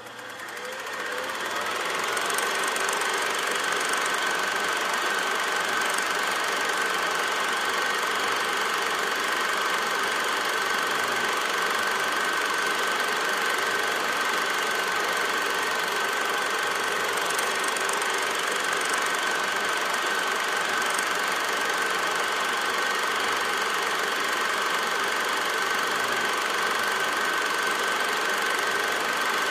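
A film projector running: a steady mechanical whirr with a constant high whine, fading up over the first two seconds and holding level.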